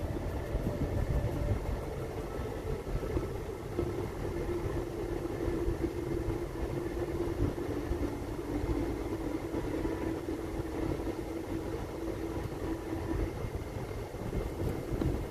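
Vehicle running at low speed along a dirt road, heard from inside the cab: a steady low rumble of engine and tyres, with a steady hum that stands out from about four seconds in until near the end.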